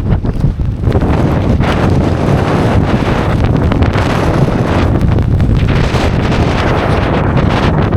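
Strong wind blasting across the microphone: a loud, steady rushing noise, heaviest in the low end, from a winter storm wind.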